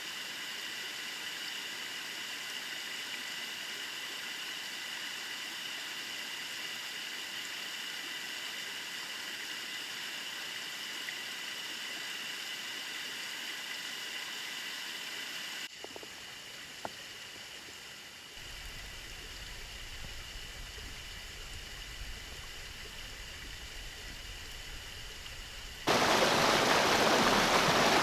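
Small Sierra creek water flowing over rocks in a steady rush. The sound changes abruptly about halfway through and again near the end, where a much louder, fuller cascade cuts in.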